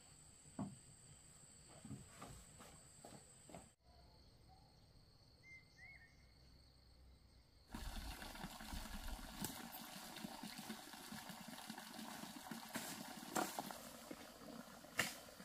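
A few faint light knocks, then from about halfway a palm-leaf broom sweeping dry leaves and dirt across the yard: a rustling, scratchy hiss with repeated strokes.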